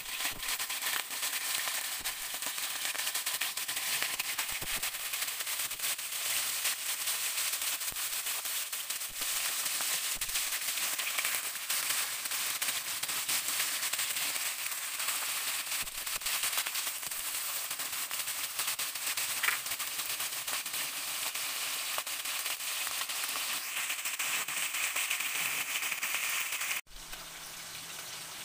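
Whole bilong-bilong (moonfish) frying in hot oil in a wok: a steady, dense sizzle full of rapid crackling and popping. It drops suddenly to a softer sizzle near the end.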